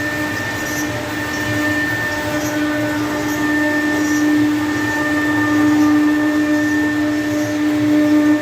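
CNC router spindle running steadily while cutting a 3D moulding: a constant motor whine with a higher steady tone over a hissing cutting noise.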